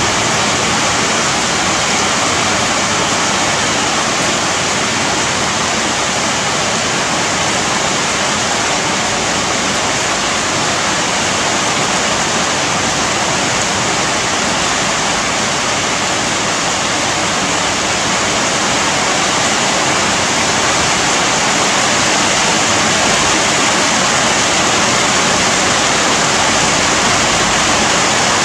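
Steady heavy rain falling on leafy trees and bamboo, an even, dense hiss that never lets up.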